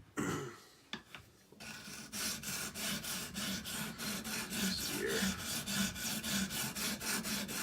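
Sharpening stone on an Edge Pro sharpener scraped rapidly back and forth across a small hunting knife's edge, about five even strokes a second, starting about one and a half seconds in after a couple of light clicks.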